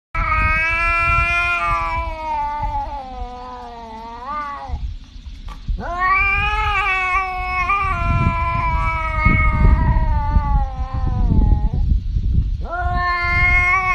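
Domestic cat giving long, drawn-out meows: one of about five seconds that falls in pitch and lifts again at its end, a second of about six seconds, and a third beginning near the end. A low rumbling noise runs beneath them, strongest in the second half.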